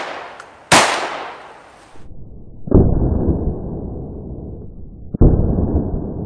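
A blank-firing pistol's sharp shot about a second in, the second of a quick double shot, with the first shot's echo dying away at the start. After a short gap, two deep, muffled shots with long fading tails, about two and a half seconds apart: the double shot played back slowed down.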